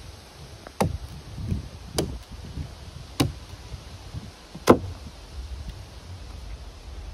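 Terävä Skrama 240 large knife chopping at the end of a wooden stick to point it into a stake. Four sharp chopping strikes come a little over a second apart, the last and loudest about two-thirds of the way in, and then the chopping stops.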